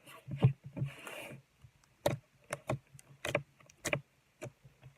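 Soft buttery slime squished and stretched in the hands, making a string of irregular wet clicks and pops.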